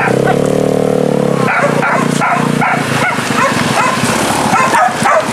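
A pack of hunting dogs barking and yelping together, many voices overlapping, with one longer drawn-out call near the start. The pack is giving tongue while chasing game on a hunt.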